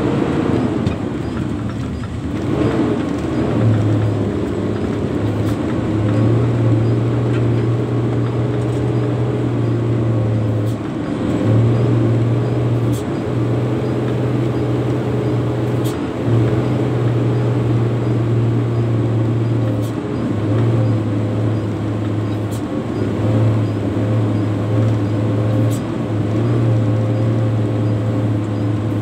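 Hino 260 JD dump truck's diesel engine running under way, heard from inside the cab, with a loud low drone that cuts in and out. The engine note falls about a second in.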